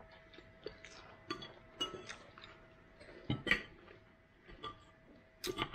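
Metal fork clinking and scraping on a ceramic plate: a few light, scattered clicks.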